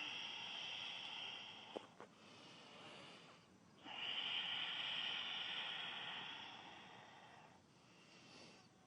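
A person breathing slowly and deeply, heard close to the microphone, in two long breaths: one at the start and a louder, longer one from about four seconds in that slowly fades.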